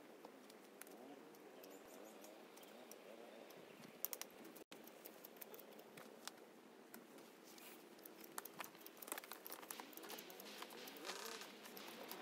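Faint crinkling and rustling of vinyl banner sheeting and sticks being handled on a teepee frame, with scattered light clicks that become busier in the second half.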